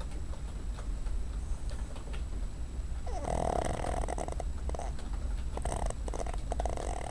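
Pet dog snoring while asleep. After about three seconds without a snore, a rattling snore comes with each breath, three or four times toward the end.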